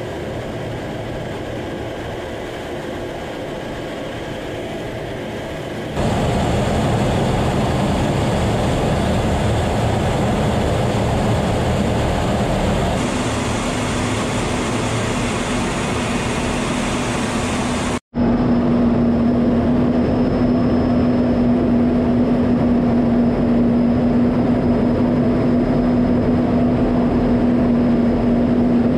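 Steady rushing in-flight noise of jet aircraft heard from inside the cockpit. It steps louder about six seconds in, breaks off for an instant about two-thirds of the way through, and then resumes with a steady low hum over the rush.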